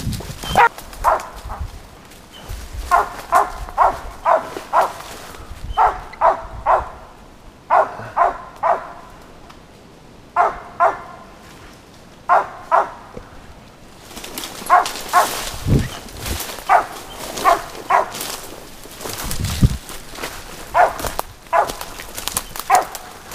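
Hunting dog barking at a squirrel, short sharp barks in quick runs of two to six with pauses of a second or two between runs.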